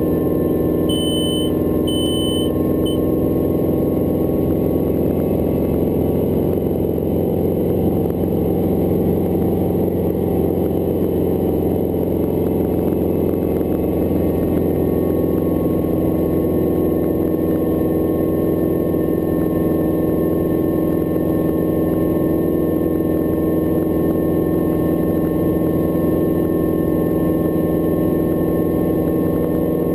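Hughes 269 helicopter's piston engine and rotors running steadily, heard from the cockpit. There are three short high beeps about a second in.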